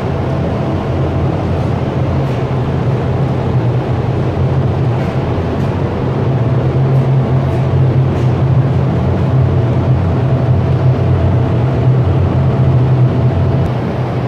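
Spray paint booth's ventilation fans running: a steady low drone with a faint higher hum over it, a little louder from about halfway through.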